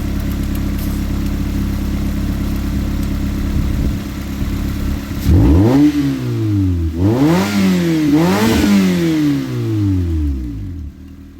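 Toyota engine running steadily, then revved up three times in quick succession from about five seconds in, falling back to a quieter idle near the end. The engine has had about a thousand airsoft BBs fed into it and is starting to make noise.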